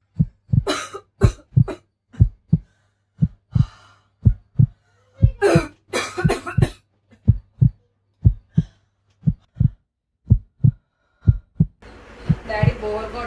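Heartbeat sound effect, a steady run of deep lub-dub thumps, with a girl coughing in two fits, about a second in and again around five to seven seconds in. Dialogue starts over the heartbeat near the end.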